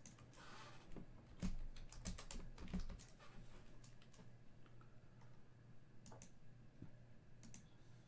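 Typing on a computer keyboard: a quick run of key clicks about one to three seconds in, then a few scattered clicks later, over a faint steady low hum.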